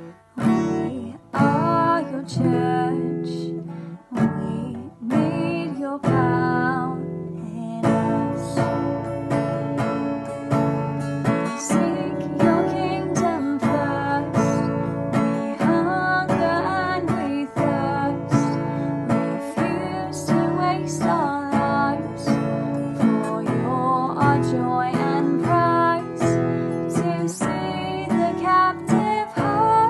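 Acoustic guitar strummed in a steady rhythm, accompanying a worship song.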